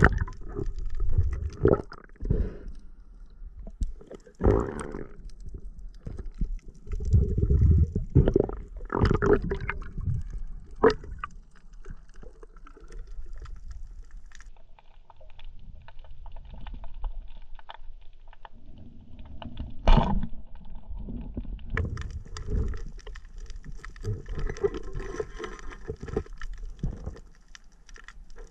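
Muffled underwater sound from a camera in its waterproof housing: irregular low thumps and water swishes as a freediver swims and handles his speargun and torch, with a few sharper knocks, the loudest about twenty seconds in.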